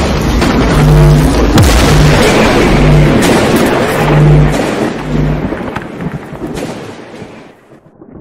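Cinematic intro sound effect: a loud rumbling boom with several deep low pulses, fading away over the last few seconds.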